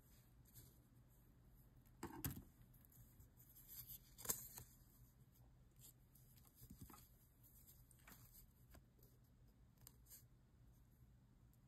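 Faint handling sounds: soft knocks and rustles as small leather and paper cutouts are picked up and set down, the loudest about two and four seconds in. Near the end, scissors start cutting into the leather.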